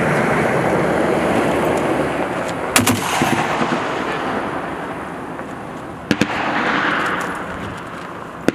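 An M2 Browning .50 caliber heavy machine gun firing short bursts of two or three rounds, about three seconds in and again about six seconds in, with another shot near the end. A long rolling echo fills the gaps between the bursts.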